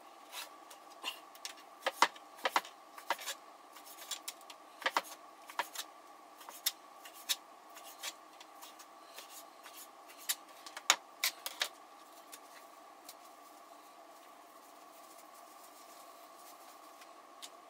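A knife clicking and scraping against a plate while meat is cut, in irregular sharp clicks that stop about twelve seconds in, over a faint steady hum.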